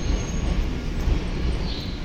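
Railway station ambience: a steady low rumble with general noise over it.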